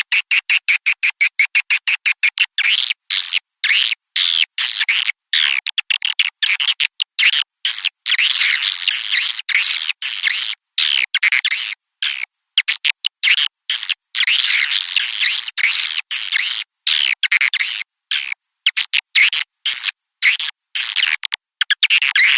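Edible-nest swiftlet calls in a swiftlet-house lure recording, played to call swiftlets in to roost and nest. Rapid high chirps, about eight a second, for the first couple of seconds, then dense twittering chatter, broken throughout by abrupt cuts to dead silence.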